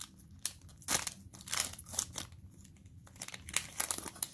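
Foil wrapper of a Mosaic NFL trading-card bonus pack crinkling and crackling in the hands as it is picked up and handled, along with the rustle of cards being set down, in a quick run of short irregular rustles.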